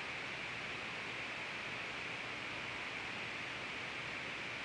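Steady, even hiss of room tone with no distinct events.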